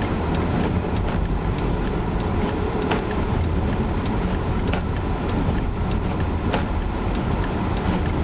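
Steady road and engine rumble heard from inside a car driving on a snow-covered road, with light sharp clicks every second or two.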